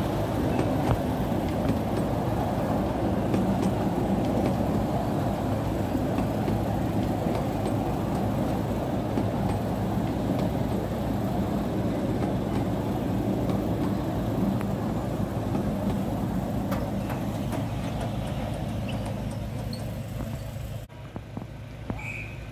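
Miniature railway train departing: its carriages roll past on the track with a steady low rumble and engine hum, which slowly fades as the train pulls away and drops off sharply near the end.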